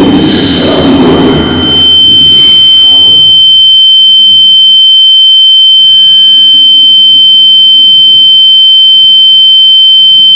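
Loud, steady, high-pitched electronic tone held at one unbroken pitch. It takes over about two seconds in, while a rumbling noise under it fades away.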